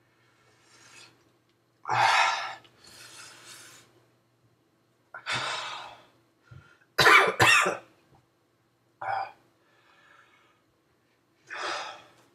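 A man coughing and clearing his throat several times, with breathing between, from the burn of a Trinidad Moruga Scorpion pepper. The loudest is a quick double cough about seven seconds in.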